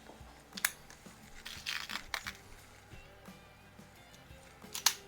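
Faint background music, with a sharp click about half a second in, a short rustle about two seconds in and another click near the end.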